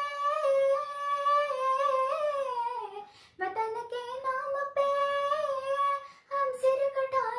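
A girl singing a Hindi patriotic song solo and unaccompanied, holding long drawn-out notes in three phrases, each sliding down in pitch at its end, with short breaths between.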